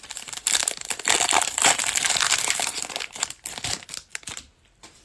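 Foil wrapper of a 2021 Playoff football card pack being torn open and crinkled by hand: a dense crackling rustle for about two and a half seconds, then lighter scattered rustles as the cards come out.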